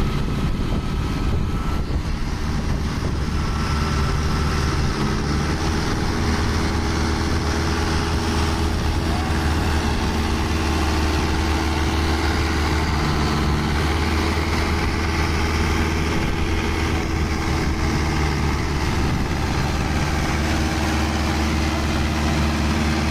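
Diesel engines running steadily under load: a Mahindra Arjun Novo 655 DI 4WD tractor stuck deep in mud, with a Yanmar tracked combine harvester towing it out.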